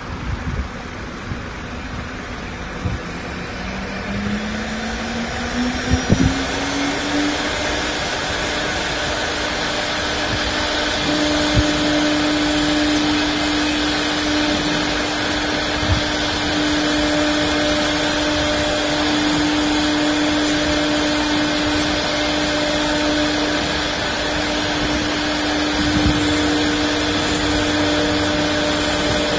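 The 4.5 kW air-cooled spindle of a 1325 CNC wood router spinning up, its whine rising over about five seconds, then running steady at speed over a constant rushing noise. A few short knocks sound along the way, and another tone joins near the end.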